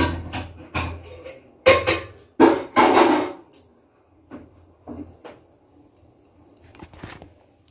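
Cooking pots and dishes clattering as the pot of cooked rice is taken off and set down: a quick run of knocks and scrapes in the first three seconds or so, then a few lighter knocks.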